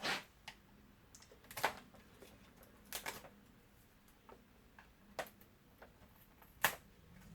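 Scattered sharp plastic clicks and knocks, about five in all, from handling the Hoover Unplugged UN204B cordless vacuum cleaner.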